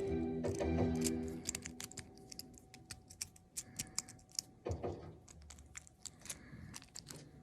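Background music fading out over the first couple of seconds, followed by a run of irregular, sharp small clicks.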